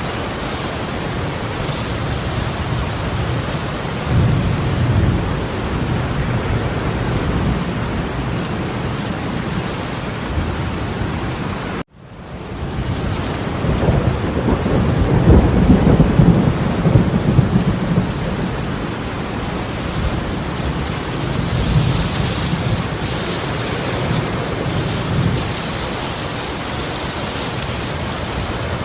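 Heavy downpour of rain pouring steadily, with rolling thunder rumbling low several times, loudest in the middle. The sound cuts out abruptly for a moment about twelve seconds in and fades back up.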